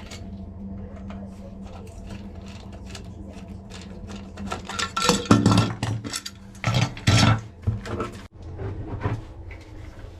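Clicks, knocks and clattering of hand tools and a plastic cover being handled while a heating wiring centre is opened, busiest around the middle, over a steady low hum.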